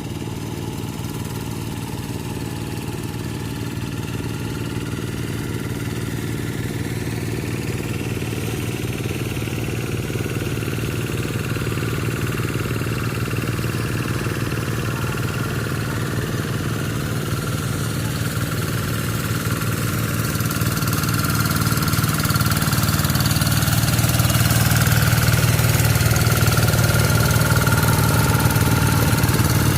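Quick TL800 two-wheel hand tractor's Kubota RD85di single-cylinder diesel engine running steadily, getting gradually louder through the stretch.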